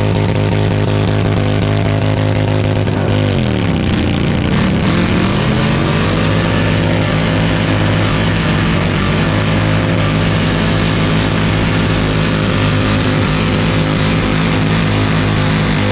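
Motorcycle engine revving hard and held at high revs during a burnout, its rear tyre spinning on the pad. The revs drop sharply about three seconds in, climb back within a couple of seconds, then hold steady, with another brief dip near the end.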